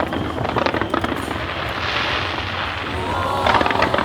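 Fireworks bursting overhead: a rapid run of cracks and pops, a hissing spray of sparks about halfway through, and a dense cluster of crackling bursts near the end.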